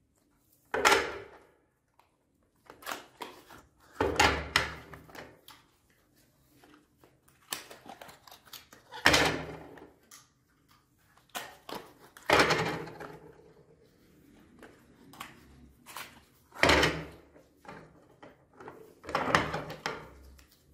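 Bars of soap handled and set down on a plate: a series of separate knocks and thunks, about six louder ones a few seconds apart with lighter clicks between.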